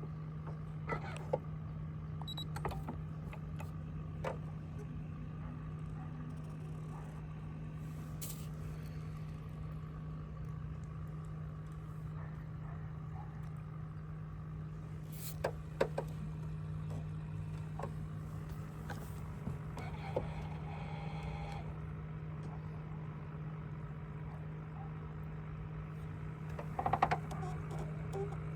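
Steady low hum of a small motor, with scattered light clicks and knocks and a short flurry of louder clicks near the end.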